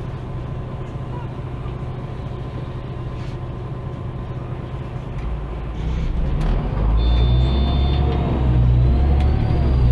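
Diesel engine of an articulated MAN Lion's City G city bus heard from on board, running steadily and then pulling away about five seconds in, getting louder with a rising whine as it accelerates. A brief high tone sounds about seven seconds in.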